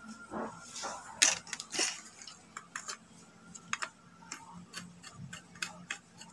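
Irregular small sharp clicks and ticks of a screwdriver working a terminal screw on an electrical switchboard, with a couple of louder scraping rustles from handling the board and wires in the first two seconds.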